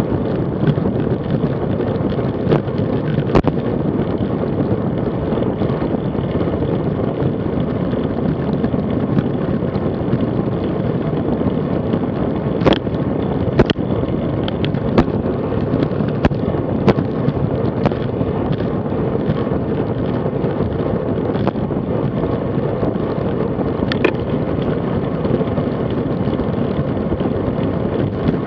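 Steady wind rush and road rumble on the microphone of a bike-mounted action camera, riding a road bike at about 30 to 37 km/h. Scattered sharp clicks or knocks come through, several of them in the middle stretch.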